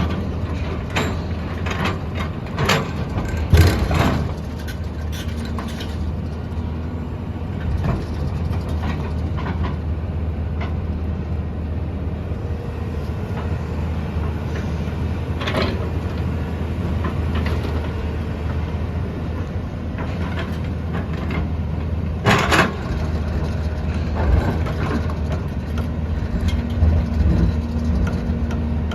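Diesel engine of a JCB 3DX backhoe loader running steadily under load while it digs and loads mud, with a few sharp clanks and knocks scattered through, the loudest about 3.5 s in and about 22 s in.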